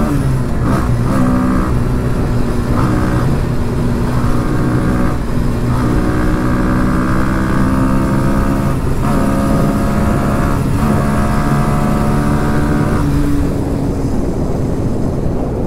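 Sport motorcycle engine pulling hard at speed. Its note breaks off briefly several times as it shifts gear, over a steady rush of wind noise.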